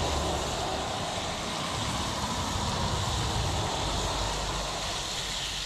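Trout fillets sizzling in a frying pan on a portable camp stove: a steady frying hiss.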